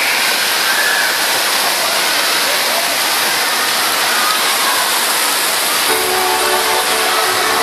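Loud steady rushing noise with no distinct pitch, with music coming back in underneath about six seconds in.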